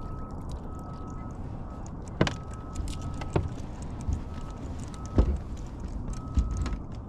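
Knocks and clunks of gear being handled aboard a fishing boat, four or five sharp ones, over a steady low rumble. A faint beep sounds again and again in short dashes throughout.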